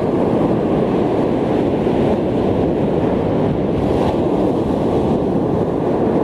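Ocean surf breaking on the beach, with wind buffeting the microphone: a steady, deep rush of noise.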